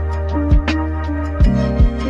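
Instrumental background music with a steady beat: held chords over a deep kick-drum thump about once a second, with light percussion ticks.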